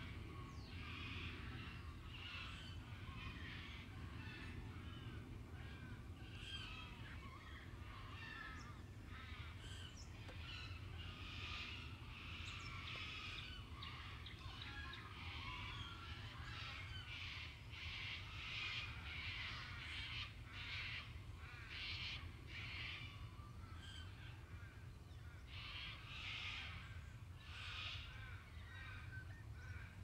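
A group of white-winged choughs calling, many short harsh calls one after another, thickest in the middle and again near the end, over a low steady background rumble.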